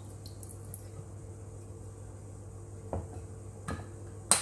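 Kitchenware being handled over a faint steady hum: two light knocks, then one sharp clack near the end, as a soy sauce bottle and dishes are moved and set down.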